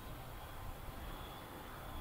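Low rumble of a diesel-hauled MBTA commuter rail train pulling away along the track, with a faint steady high tone above it.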